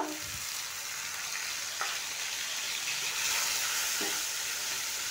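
Ground onion, garlic and ginger paste sizzling steadily in hot mustard oil in a non-stick kadai as it is stirred, with a couple of light knocks against the pan.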